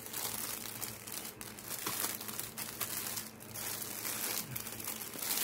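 Clear plastic wrapping crinkling and rustling as it is handled, in uneven crackles around a cloth shoe bag.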